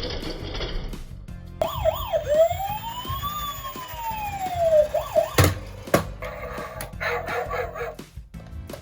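Police-car siren wailing: a few quick rises and falls, then one long slow rise and fall. It is followed by two sharp clicks a little over half a second apart.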